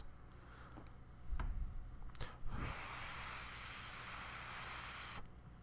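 A few soft knocks, then a steady hiss of breath blown at the LEGO NXT sound sensor for about two and a half seconds, cutting off suddenly. The blowing drives the sensor's readings up.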